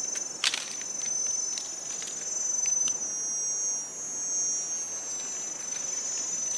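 Steady, shrill chorus of insects. Over it come a few short rustles and light knocks, the loudest about half a second in, as mushrooms are set into a woven bamboo basket.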